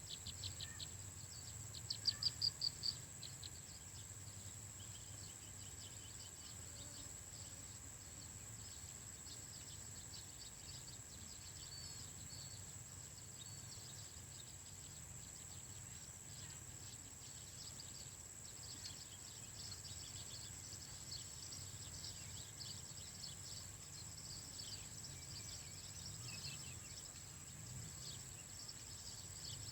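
Outdoor nature ambience: a steady high insect drone with many faint chirping calls throughout, and a short, louder run of rapid chirps about two seconds in.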